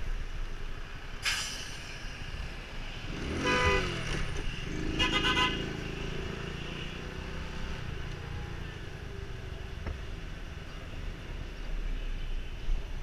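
A vehicle horn sounds twice, about three and a half seconds in and again about five seconds in, over steady low engine and road noise from a scooter ride through town traffic. A short hiss comes about a second in.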